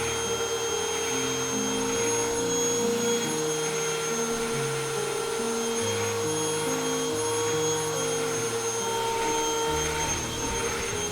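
Vacuum cleaner motor running steadily with a high whine that falls away near the end, over soft background music.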